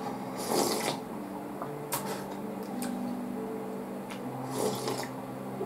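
Someone eating cold ramen: a few short slurps and mouth noises of noodles and soup, about a second in, near two seconds, and again near the end, over a soft background of long held tones.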